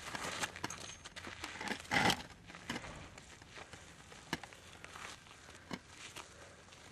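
Gravel crunching and crackling on a dirt road, with scattered sharp clicks and one louder burst about two seconds in.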